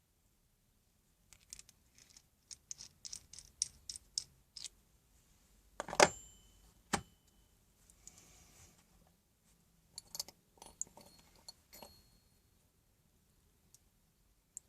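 Small metal hole saws and their parts clicking and clinking as they are handled, with a quick run of light clicks, then a single louder clack that rings briefly.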